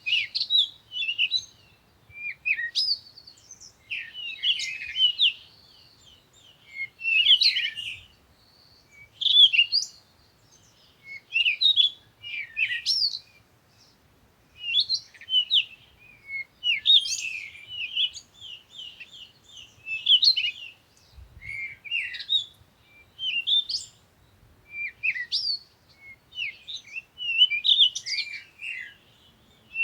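Songbirds chirping and twittering in short, high-pitched phrases that come every second or two with brief pauses between them.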